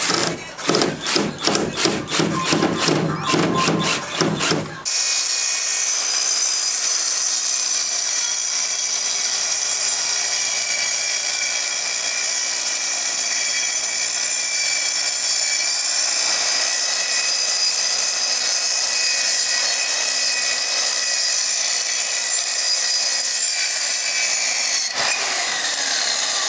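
Electric power saw cutting wood, running steadily for about twenty seconds, then released and winding down with a falling whine near the end.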